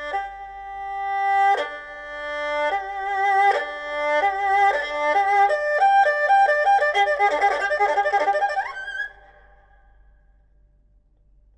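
Erhu played with the bow: held notes that swell in loudness, quickening into a fast run of notes with vibrato. It ends on a short upward slide about nine seconds in, then stops.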